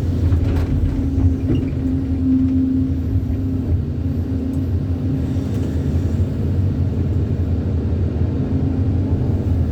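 Heavy earthmoving machinery's engine running steadily, a low even drone.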